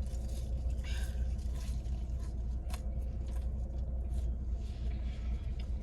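Eating in a car: soft rustles and scattered light clicks over a steady low hum from the car.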